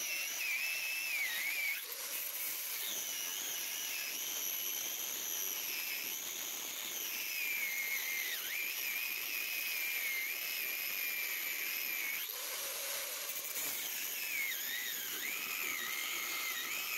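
Angle grinder with a cut-off disc cutting through the rusted steel rivets of a leaf spring shackle hanger bracket. It is a high whine that wavers and dips in pitch as the disc loads up in the cut, over a steady hiss.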